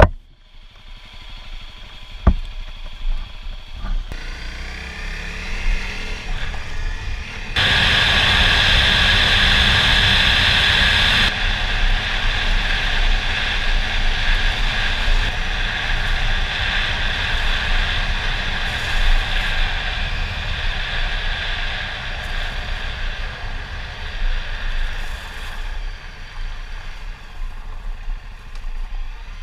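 Honda CRF250L single-cylinder dirt bike running as it is ridden along a gravel track, engine, tyre crunch and wind on the helmet camera mixed together. It starts quieter with a sharp click about two seconds in, the engine pitch rises as it gets going, and it is loudest for a few seconds about eight seconds in before settling to a steady ride.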